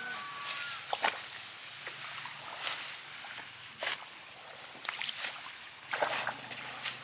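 Irregular rustles and crunches of rice stalks being handled during the harvest, a sharp one about every second over a steady high hiss.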